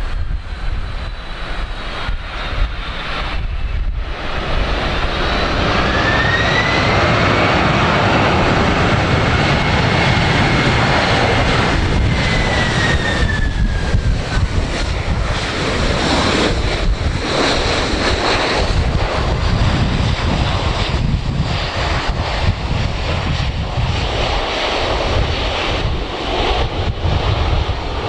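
Boeing 767-300 airliner's jet engines on landing: a loud, steady roar that builds over the first few seconds, with a whine that rises about six seconds in and falls away around thirteen seconds.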